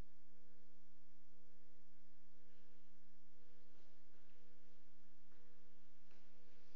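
A steady electrical hum made of several low tones, with a fainter, higher beep repeating about once a second and a few faint clicks.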